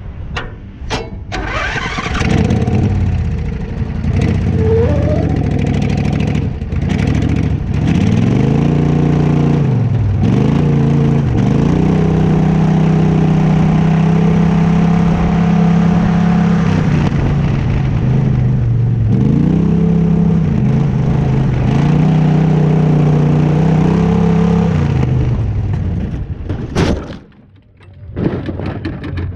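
Racing lawnmower's engine running hard, its revs dipping and climbing again several times, as when easing off for corners, with long stretches held steady at high revs. Near the end the engine sound suddenly drops away for about a second before it returns.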